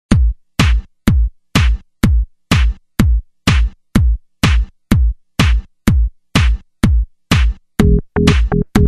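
Electronic music intro: a drum-machine beat of hard, deep-bottomed hits, about two a second. Near the end a held synth note and extra in-between hits come in.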